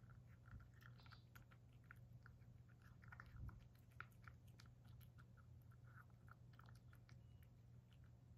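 Faint sound of a cat eating from a ceramic bowl: soft, irregular chewing clicks as it works through carrot mixed with bonito flakes, over a steady low hum.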